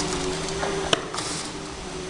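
Automatic flat-surface labelling machine running with its conveyor belt, a steady mechanical hum, with one sharp click about a second in.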